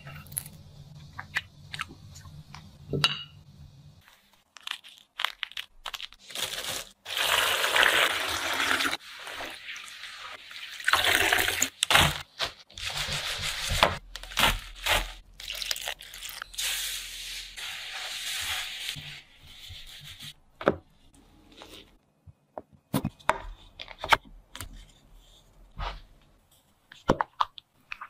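Close-up food-preparation sounds. First a few light clicks of a fork against a cheesecake slice and plate, then long stretches of rustling and crinkling as dried rose petals are handled in a glass bowl. Near the end come short clicks and scrapes of utensils stirring thick rose jam in a glass jar.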